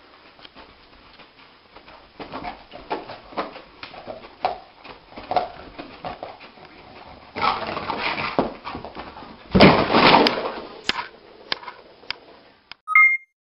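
A dog dreaming: it whimpers and yips softly in its sleep while its legs paddle on the carpet. About eight to ten seconds in comes a louder scuffle as it scrambles to its feet.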